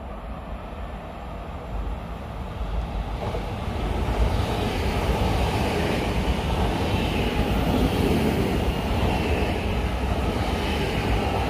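Electric passenger train running along the track beside the platform: a low rail rumble and wheel noise that builds about four seconds in and then stays loud.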